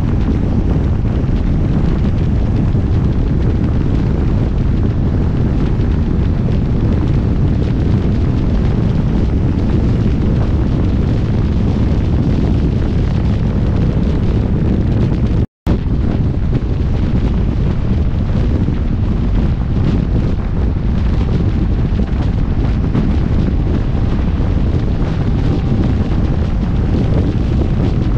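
Loud, steady wind rumble buffeting the microphone, cutting out for an instant about halfway through.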